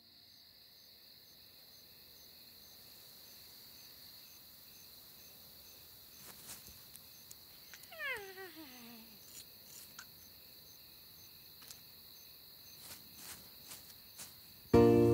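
Night insects chirring with a steady high tone and faint pulsing, over scattered small rustles and clicks. About eight seconds in, a small animal gives a single cry that slides steeply down in pitch over about a second. Music comes in loudly just before the end.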